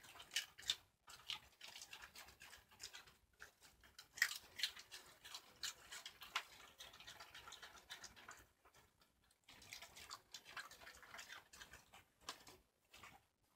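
Shiba Inus chewing raw cabbage leaves: irregular crisp crunches and crackles, with a short pause about nine seconds in.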